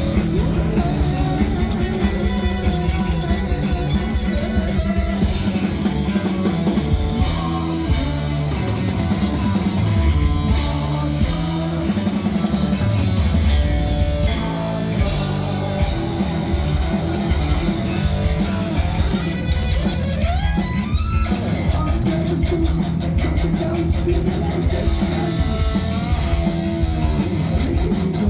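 Heavy metal band playing live: distorted electric guitars, bass and drum kit, loud and steady, with some singing.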